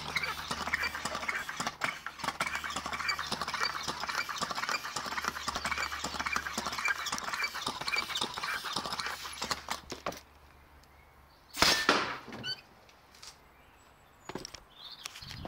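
A floor pump being worked stroke after stroke to pressurise a homemade air cannon. After a short pause the cannon fires with one sudden loud burst of released air, about twelve seconds in.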